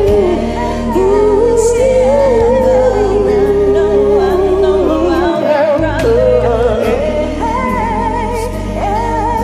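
Karaoke backing track with a singer's wordless vocal runs that slide and waver in pitch over the bass and chords.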